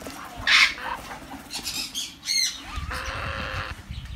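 Harsh squawks from African grey parrots: a loud rasping one about half a second in and a shorter, higher call just after two seconds. Rustling handling noise follows for the last second or so.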